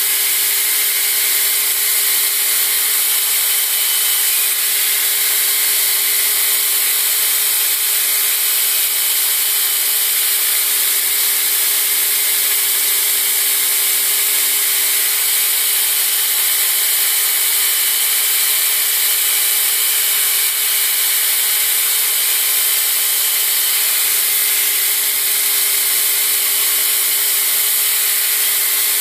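Belt grinder grinding the bevel of a steel push-dagger blank: abrasive belt running against the steel with a steady, even hiss and a faint hum of the machine underneath.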